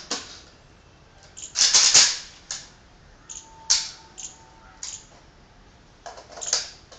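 An INSAS rifle being handled in a stoppage drill: a run of separate sharp metallic clicks and clacks from its working parts, the loudest a longer clatter about two seconds in.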